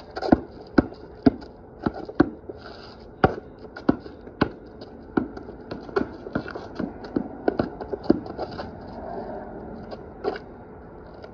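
Basketball bouncing on a concrete driveway as it is dribbled, sharp bounces coming about two a second, with sneakers scuffing on the concrete. The dribbling stops about three seconds before the end, with one last bounce near the end.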